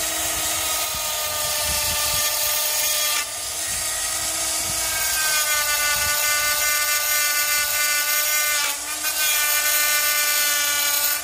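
Handheld die grinder running at high speed with a whine, its small burr grinding metal off a steel mounting tab on the engine. The pitch dips briefly twice and rises a little midway as the bit bites and eases.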